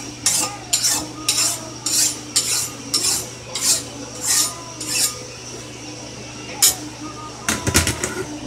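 Hand file rasping along the edge of a steel blade clamped in a vise, about two and a half strokes a second, taking metal off the edge bevel before the blade is heat treated. The filing stops about five seconds in, and near the end there is a sharp click and a short clatter of metal.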